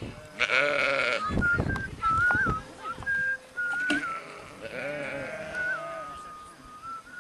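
A flock of sheep bleating: two loud, quavering bleats, one about half a second in and another about five seconds in. Between and after them a thin, high whistle wavers in pitch.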